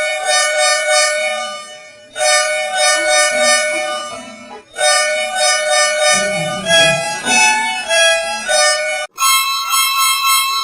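Bus horn sound effect, edited into musical variations: four long, chord-like horn blasts, the third stepping through a few different pitches like a short tune and the fourth pitched higher.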